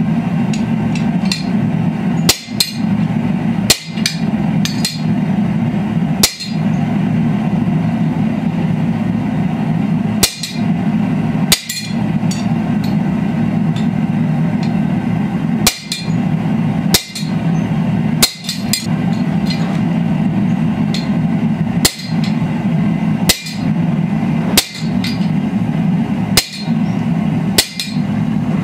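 Hammer blows on the top die of a guillotine tool on an anvil, driving it into a red-hot steel bar: sharp ringing strikes at uneven gaps of one to four seconds, over a steady low hum.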